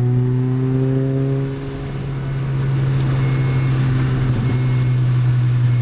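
Lotus Elise 111R's 1.8-litre four-cylinder engine running steadily at part throttle around 4,000 rpm, heard from inside the car, its pitch creeping slowly upward. From about three seconds in, a short high electronic beep sounds three times, about a second and a quarter apart: the onboard video recorder's low-battery warning.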